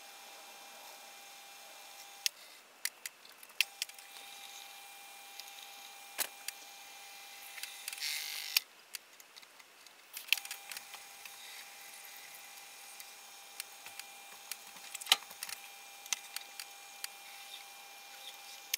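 Small metal lathe running with a steady thin whine while machining aluminium bar stock. The whine cuts out about two seconds in, and scattered metal clinks follow, with a short scraping burst around eight seconds. About ten seconds in it starts again as a centre drill in the tailstock chuck works the end of the part, with more clinks.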